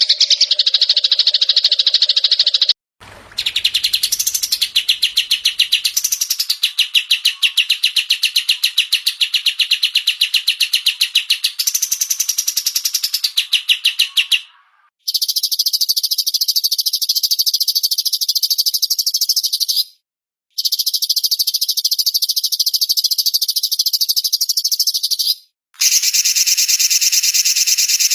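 Small songbirds' rapid trills and chattering, many quick high notes repeated evenly. They come as looped recordings joined one after another, with brief complete cut-outs between the pieces.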